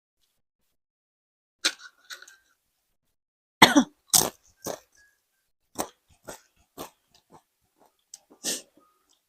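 A person coughing in a string of about a dozen short, sharp coughs, the loudest about four seconds in.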